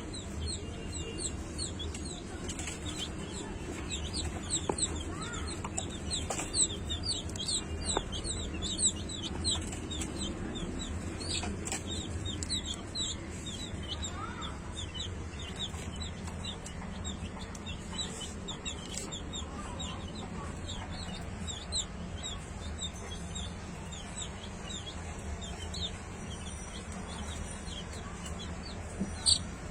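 Chickens clucking, with a dense run of short, high, falling chirps throughout over a steady low hum.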